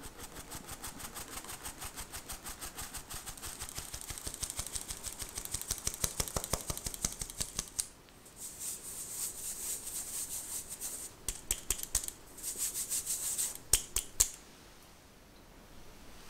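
Stainless-steel mesh sieve being tapped rapidly, several taps a second, as flour sifts through it into a bowl. It is then shaken, with a hissing rustle of flour on the mesh, and ends in three sharp knocks of the sieve, the loudest sounds.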